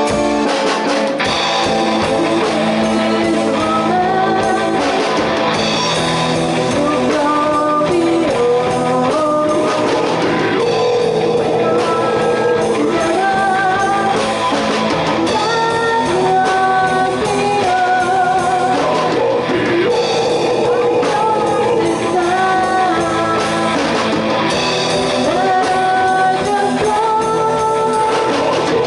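A rock band playing a song: guitars over drums, with a voice singing.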